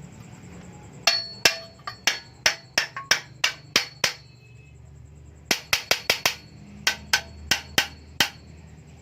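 A hammer striking a metal motorcycle muffler with sharp, ringing blows, in two runs of about a dozen strikes each with a short pause between.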